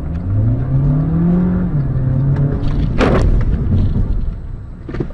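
A car engine revs up for about a second and a half and then eases off. About three seconds in comes one loud, sharp bang, typical of a collision, with a smaller knock near the end.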